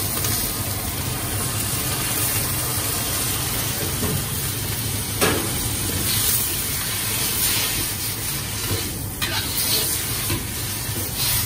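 Noodles and shredded cabbage sizzling in a carbon-steel wok as a ladle and spatula stir and toss them, over the steady low roar of a high-heat gas wok burner. The ladle clanks sharply against the wok about five seconds in.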